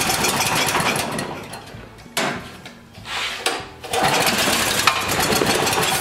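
Honda GX340 single-cylinder engine on a Wacker generator running rough and unevenly: it sags about two seconds in and picks back up about a second and a half later. The mechanic puts this rough running down to the carburetor insulator block, not the carburetor.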